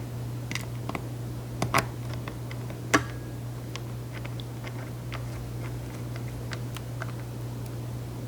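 Small screwdriver driving tiny screws back into a laptop's bottom panel: scattered light clicks and ticks, with two sharper clicks just under 2 seconds and about 3 seconds in, over a steady low hum.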